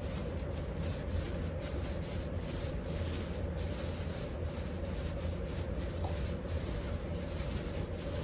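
Continuous rubbing, sanding-like noise over a surface, steady throughout with faint repeated strokes.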